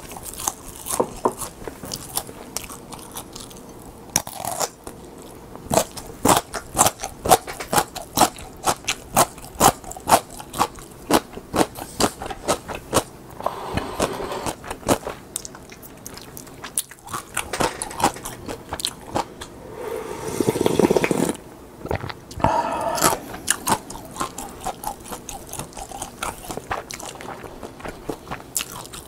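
Close-miked crunching and chewing of crisp seasoned laver (Korean gim), with rapid dry crackles and bites. A louder, longer smeared noise comes about 20 seconds in.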